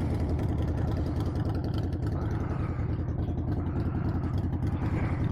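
Motorcycle engines running with a steady low drone.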